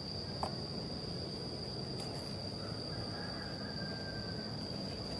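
Steady high-pitched insect drone, one unbroken tone, over a low even forest hum. A couple of soft clicks and, near the middle, a faint thin whistle lasting about a second.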